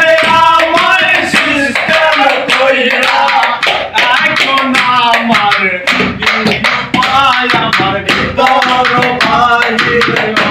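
A man singing a Bengali song to a rhythm beaten by hand on a plastic water jar used as a drum, the slaps coming in quick steady strokes under the voice.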